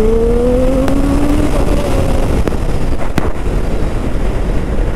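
Triumph Street Triple 765 RS's inline-three engine pulling under acceleration, its pitch rising over the first second and a half, then fading under a steady rush of wind on the microphone. A few sharp clicks in the middle.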